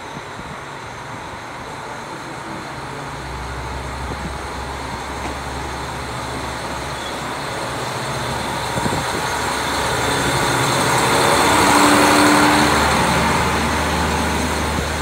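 Single-car KiHa 40 diesel railcar moving off along the platform and passing close by, its diesel engine running and growing louder as the car draws alongside, loudest about twelve seconds in, then easing.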